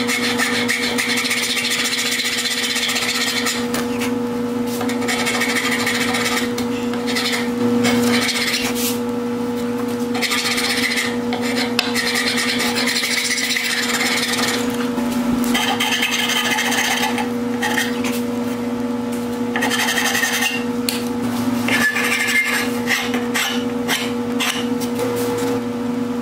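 A flat hand file rasping across a hickory axe handle in runs of back-and-forth strokes with short pauses between them, shaping the shoulder of the handle. A steady low hum runs underneath.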